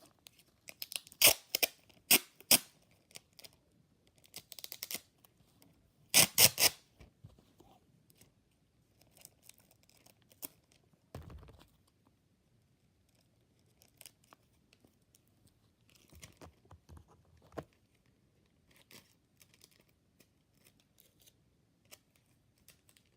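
Sticky tape pulled off the roll and torn in a few short, loud ripping bursts, the longest about six seconds in, followed by scattered faint rustles and taps of hands working a plastic bag.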